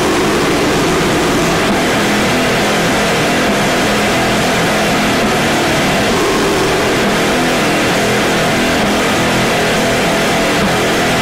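Lo-fi bestial black metal/noise recording: a dense, heavily distorted wall of noise at constant loudness, with wavering pitched tones buried in it.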